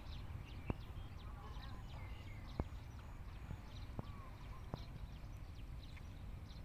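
Outdoor ambience of many short, high animal chirps and calls over a low steady rumble, with a few sharp single clicks about a second or two apart.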